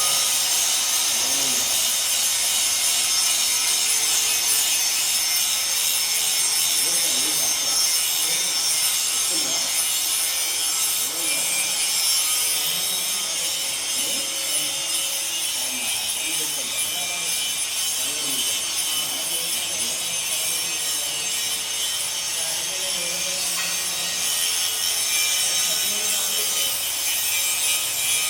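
Continuous harsh abrasive rasping from metalwork, a steady hiss-like noise with no clear stroke rhythm.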